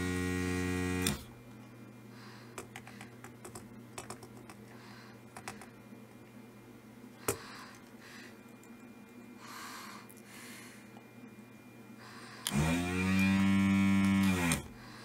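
Desoldering tool's vacuum pump running briefly, twice, each run rising in pitch as it starts and falling as it stops, as solder is sucked from the board's joints. The first run cuts out about a second in and the second runs for about two seconds near the end. Faint clicks and taps from the nozzle on the board come between the runs.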